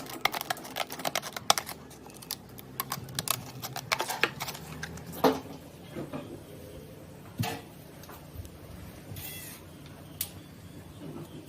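Irregular light clicks and taps, quick and dense for the first few seconds, then only a few scattered clicks and a brief hiss.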